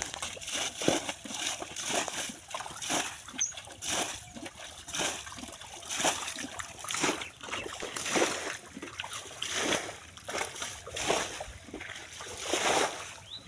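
Water splashing and sloshing again and again in an irregular run of splashes, about one or two a second.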